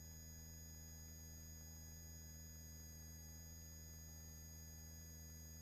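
Near silence: a faint, steady electrical hum of fixed tones from the helicopter's intercom audio feed, with the voice-operated microphones gated off between the pilot's announcements.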